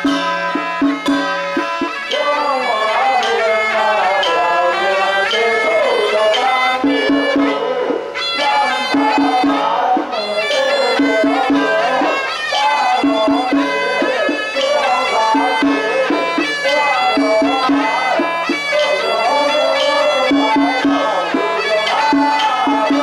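Taiwanese temple ritual music: double-reed horns (suona) play a winding, sliding melody over evenly repeated drum and gong strokes.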